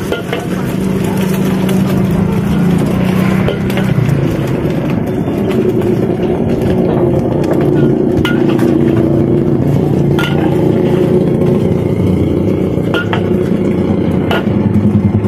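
Steady engine hum of road traffic, motorbikes and cars running, with a few sharp clinks over it.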